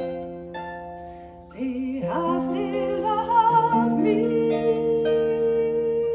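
Lever harp being plucked, notes left ringing into one another. A woman's singing voice, with a wavering vibrato, comes in over the harp about a second and a half in.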